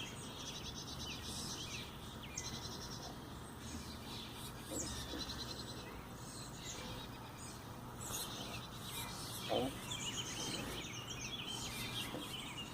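Birds chirping and trilling, many short high calls and rapid trills overlapping. A single short, lower cry stands out about nine and a half seconds in.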